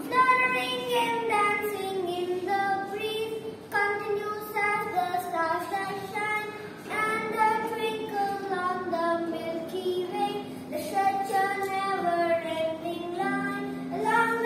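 A boy singing a slow melody with long held, gliding notes, over a few sustained low notes from the hollow-body archtop guitar he is holding.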